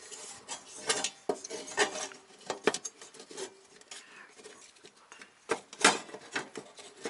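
Irregular light clicks and metallic clinks as a 7-inch round LED headlight and its chrome trim ring are handled and seated into a VW bus's headlight bucket, with some rubbing in between; the sharpest click comes near the end.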